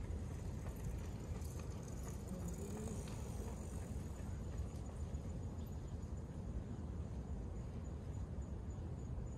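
Outdoor ambience: a steady low rumble with faint insects chirping high and thin throughout.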